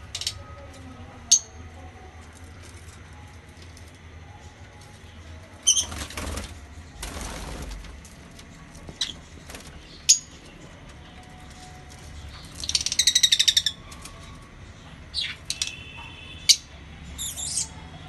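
Lovebirds giving scattered sharp, high chirps and one rapid chattering trill lasting about a second, with a whoosh of flapping wings twice about a third of the way in.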